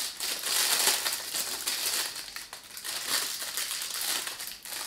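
Thin clear plastic packaging crinkling and crackling in the hands as it is pulled open and handled.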